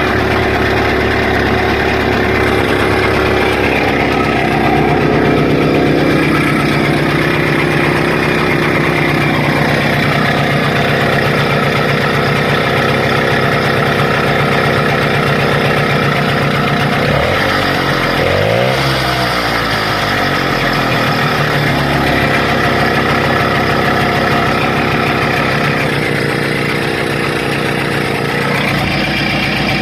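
Muravey motor scooter's single-cylinder two-stroke engine running steadily just after starting, on an ignition taken from a chainsaw or trimmer. About seventeen seconds in, the revs drop and then pick back up before it settles again.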